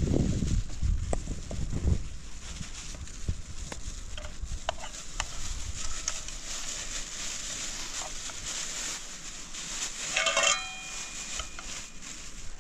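A goat bleats once, briefly, about ten seconds in, over a steady hiss with scattered clicks; a low rumble fills the first two seconds.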